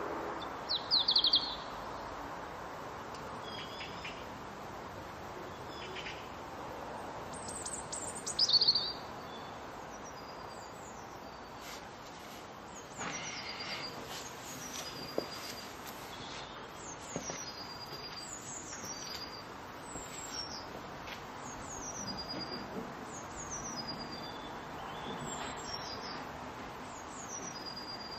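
Small songbirds singing: a loud, rapid high trill about a second in and again around eight seconds, then a high two-note phrase repeated about once a second, over a steady faint outdoor hiss.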